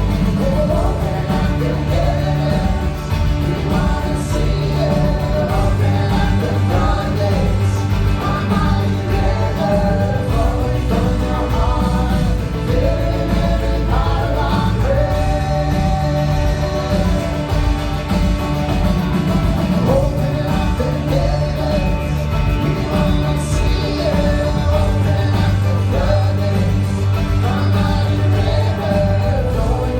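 Christian worship music: a band playing with singing over it.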